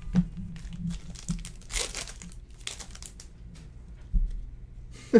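Foil wrapper of a Bowman's Best baseball card pack crinkling and tearing as it is ripped open by hand, in short scattered rustles with a louder one about two seconds in and a dull knock near the end.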